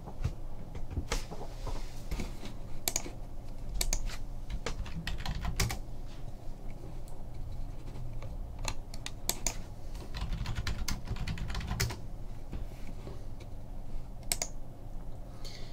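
Typing on a computer keyboard: irregular runs of key clicks.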